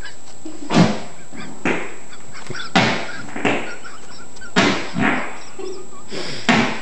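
Fart-like noises made by a boy's back pressing against the floor, trapping and squeezing out air: about seven short, sudden blasts at uneven intervals.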